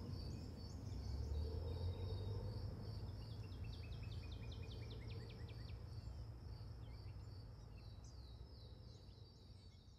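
Outdoor nature ambience: an insect, cricket-like, chirping in a steady high pulse, with a bird's rapid trill of falling notes about three seconds in and a few more calls later, over a low rumble. It fades out near the end.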